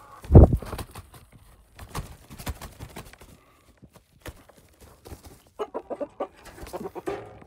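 Chickens clucking close to the microphone, with a quick run of short clucks near the end. A loud thump comes about half a second in, and scattered clicks and rustles follow.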